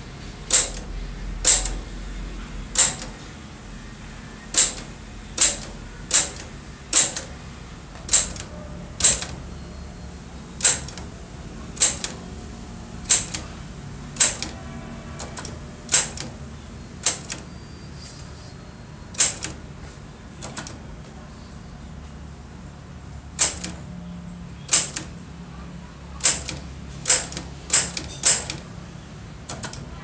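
Old Royal manual typewriter being typed on slowly, one key at a time: sharp, separate typebar strikes about a second apart, with a pause of a few seconds past the middle.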